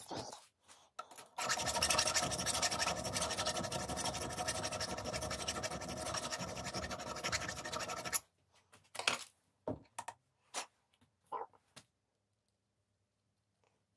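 A tool scraping a workpiece with a steady, continuous rasp for about seven seconds, which stops abruptly. A few light clicks and knocks follow.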